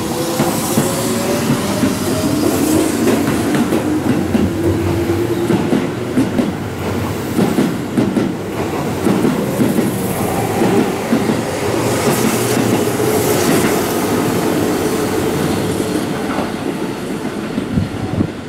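Keihan 6000-series electric train pulling out and accelerating past the platform. Its traction motors whine, rising in pitch over the first few seconds, then the wheels clatter over the rail joints as the cars go by.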